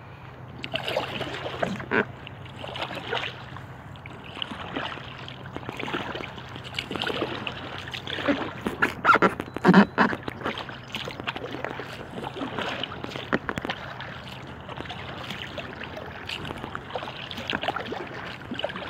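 Kayak paddle strokes splashing in calm lake water, a surge of splashing every second or so, with a louder cluster of splashes about halfway through.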